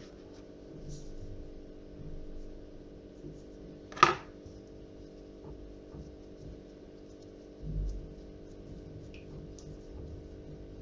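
Quiet handling of soft yeast dough as a pirozhok is filled and pinched shut, over a steady low hum. A single sharp click comes about four seconds in, and a low thump a little before eight seconds.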